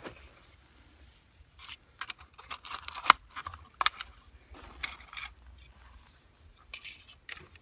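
Drain rock crunching and shifting, with scrapes and clicks of plastic orifice shields being set around PVC lateral pipes: a string of irregular crunches and scrapes, the sharpest click about three seconds in.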